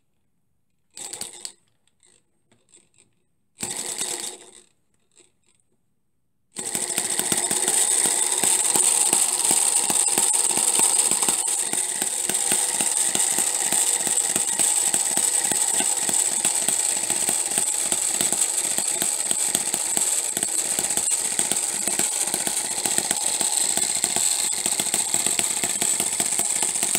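Home-built miniature four-stroke hit-and-miss engine being flipped over by hand twice in short bursts, then catching about six and a half seconds in and running steadily with rapid ticking and a steady high whine over it.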